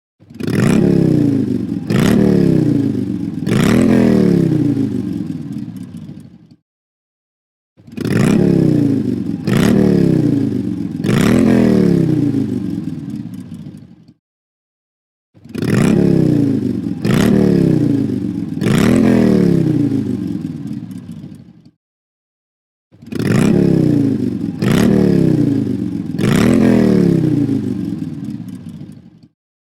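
An alarm ringtone playing on a loop: a phrase of three swelling, sliding low tones about two seconds apart, repeated four times with about a second of silence between repeats.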